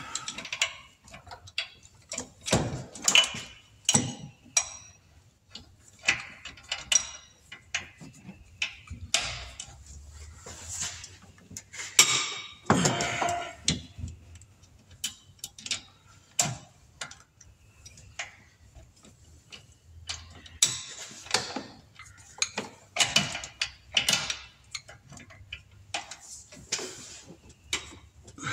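Hand ratchet clicking in short spells as bolts are turned out of the 5.7 Hemi engine, with clinks of metal tools and sockets between.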